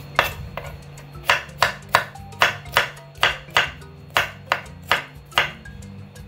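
Kitchen knife cutting cucumber on a wooden cutting board: about a dozen sharp knocks of the blade on the board, roughly three a second after a short pause near the start, stopping about a second before the end.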